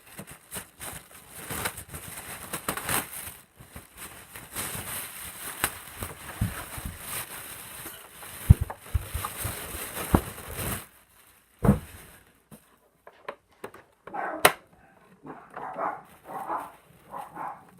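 Styrofoam and cardboard packaging being pulled and handled out of a box, crackling and crunching for about ten seconds, then dogs barking in short bursts near the end, stirred up by the noise.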